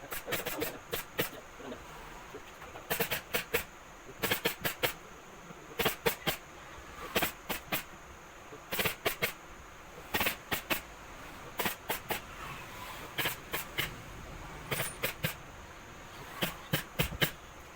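Staple gun firing staples into a sofa frame: sharp clicks in quick clusters of two to four, a cluster about every second.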